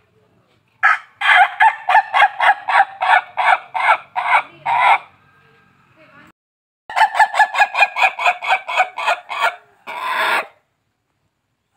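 Ayam ketawa (Indonesian laughing chicken) rooster crowing its laughing crow twice. Each crow is a rapid string of about a dozen short staccato notes that ends on a longer note.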